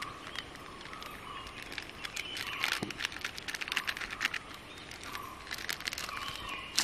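Plastic spice sachet crinkling and rustling in short crackly bursts as hands squeeze chilli powder out of it.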